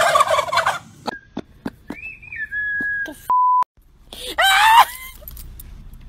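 Tom turkeys gobbling: one gobble trails off in the first second, and another loud gobble comes about four and a half seconds in.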